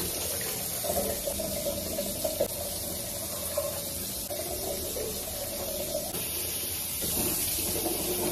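Bathroom mixer tap running steadily into a sink, with splashing as hands scoop water onto a face.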